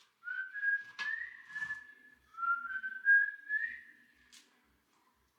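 A person whistling a tune, a phrase of stepping notes that stops about four seconds in, with a light knock about a second in.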